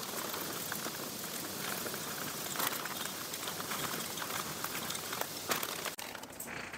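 Semi-sweet chocolate chips poured from a bag into a glass measuring cup: a steady patter of many small hard pieces rattling in. It stops abruptly about six seconds in.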